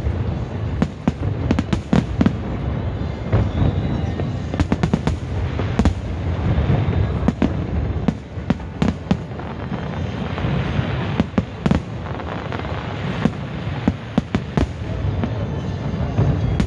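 Aerial fireworks going off in a dense, continuous barrage: many sharp bangs in quick succession over a steady low rumble of booms, with stretches of hissing crackle.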